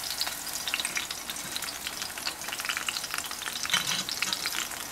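Thick bone-in ribeye searing in very hot oil in a cast-iron skillet, sizzling with a steady dense crackle of spits while the oil is spooned over it to baste it.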